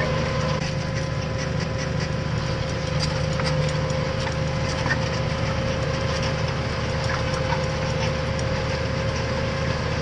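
Tractor engine running steadily while pulling a mounted reversible plough through the soil, heard from inside the cab as a low drone with a constant whine over it.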